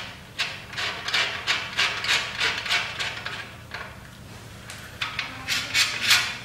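Allen key turning a bolt in a plastic clamp on an aluminium frame rail: a quick run of short rasping, grating strokes, about three a second, easing off a little after the middle, then a few louder strokes near the end.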